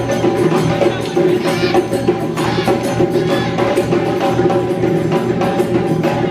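Sabar drums played in a fast, dense rhythm, many sharp hand-and-stick strokes running together without a break.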